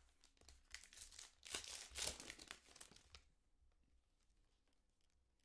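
Foil wrapper of a Panini Prizm football card pack being torn open and crinkled by hand, loudest about two seconds in and dying away after about three seconds.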